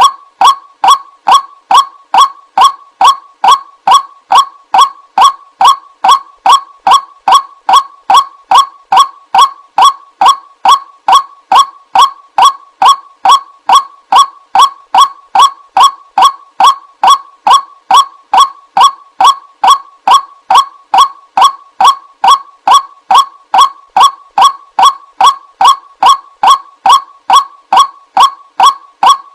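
White-breasted waterhen call playing from a bird-lure recording: a single short, harsh note repeated about twice a second at a perfectly even pace, without a break.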